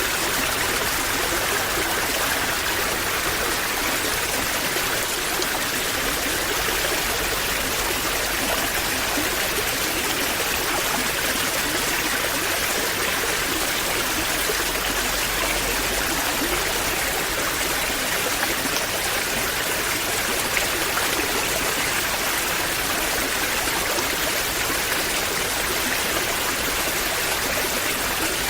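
Waterfall: falling water splashing and rushing in a steady, even wash of noise.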